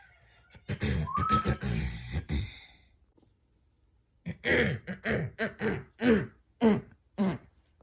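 A fit of coughing: a dense spell of coughs about a second in, with a brief rising squeak, then from about four seconds in a run of short coughs, each falling in pitch, about three a second.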